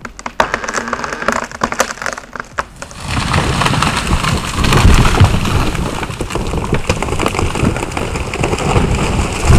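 A large rotted cedar coming down: a run of sharp cracks and snaps as the wood gives way, then about three seconds in a long, heavy crashing rush as the trunk and branches fall and hit the ground.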